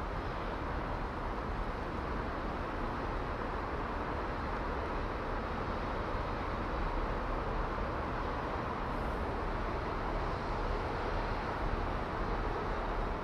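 Steady outdoor background noise: an even low rumble with hiss above it and no distinct events.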